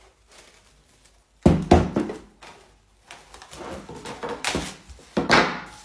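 Cling film pulled off its roll and stretched over a glass mixing bowl, rustling and crackling, with two loud thumps about a second and a half in.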